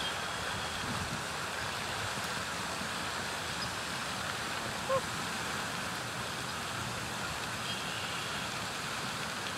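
Steady outdoor background noise with no clear single source. One short, pitched call stands out about five seconds in.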